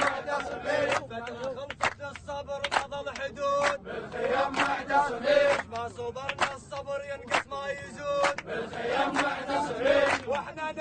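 A crowd of young men chanting a protest chant together in unison, keeping time with hand claps about once a second.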